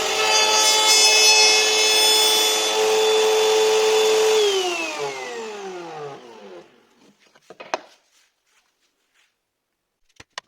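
An electric power tool running steadily against wood with a high motor whine, then switched off about four and a half seconds in, its pitch falling as it spins down to a stop. A few light clicks follow.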